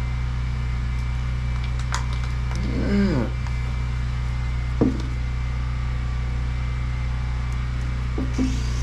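A steady low mechanical hum from a running motor. A short sound that bends up and down in pitch comes about three seconds in, and a sharp click comes near five seconds.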